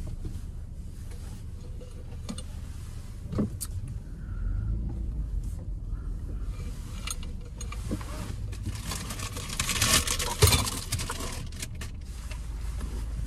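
Car engine running, heard from inside the cabin as a steady low hum, with clicks and the rustle and clatter of things being handled. The handling noise grows louder from about two thirds of the way in, with a knock near the end.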